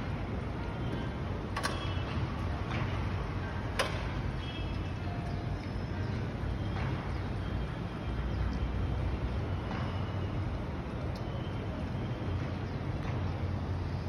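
Steady low rumble of outdoor city background noise, with two sharp clicks in the first few seconds.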